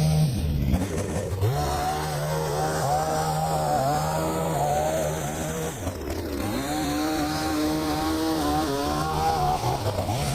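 Pole saw's small engine running at high revs while cutting branches, its pitch sagging briefly twice as the throttle eases off and picks back up.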